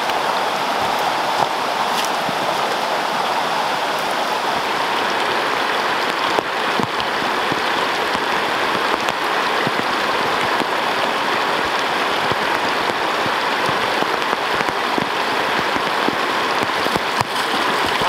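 Steady rushing of a rising creek over rocks, mixed with rain falling, with fine scattered drop ticks throughout.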